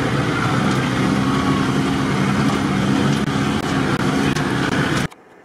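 Off-road vehicle's engine running steadily under load as it drives along a rough forest dirt track, heard from inside the cab with road and drivetrain rumble. It cuts off suddenly about five seconds in, leaving a quiet hush.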